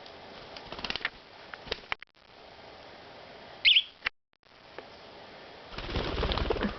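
Pet budgerigar giving one short, sharp chirp about halfway through, amid light clicking and scratching close to the microphone, with a louder rustling noise near the end.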